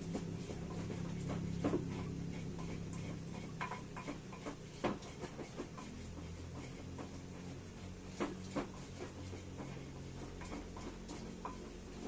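Scattered light knocks and clicks of hands and utensils at kitchen work, irregular rather than rhythmic, over a low hum that fades over the first two seconds.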